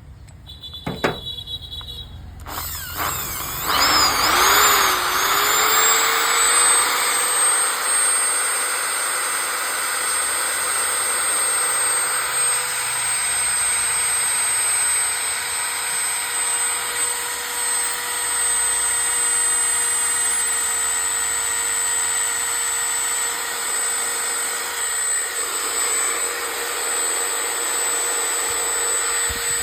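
Bosch 550 W 13 mm electric drill switched on after a few clicks: the motor whines up to speed over a few seconds, then runs steadily at full speed with a high whine.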